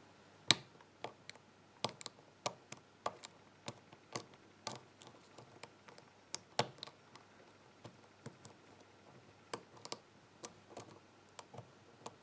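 Lock pick raking and lifting the pins of a pin-tumbler challenge lock, with irregular sharp metallic clicks, a couple of them louder. The core is sitting in a deep false set and giving little feedback.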